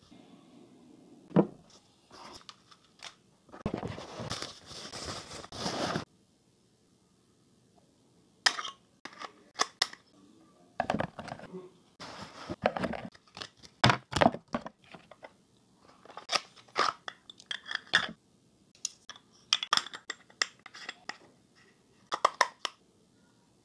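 Unboxing handling noise from a camera lens box: a cloth lens pouch, cardboard box parts and paper leaflets rustling and sliding, with a longer rustle about four seconds in and scattered taps and clicks as the lens and its caps are handled.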